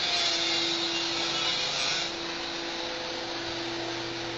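Steady drone of welding-shop machinery with a constant electrical hum. A brighter hiss sits over it for the first two seconds, then drops back to the steady drone.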